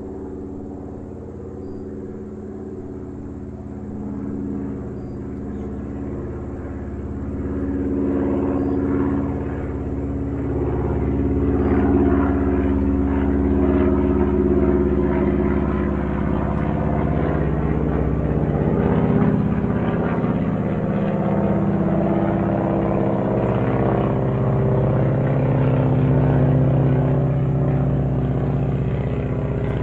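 Airplane flying overhead: a droning engine that grows steadily louder over the first ten seconds or so, then stays loud as its pitch slides lower in the second half.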